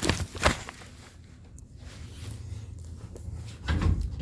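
Knocks and handling noises: two sharp knocks at the start, then a louder clatter near the end.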